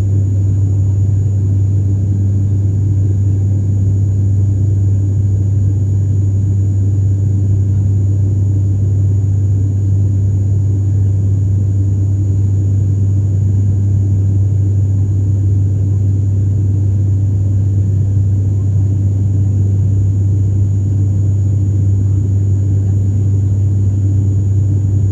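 Cabin drone of an ATR 72's turboprop engines and propellers in the climb after take-off: a steady, strong low hum with a faint high whine above it.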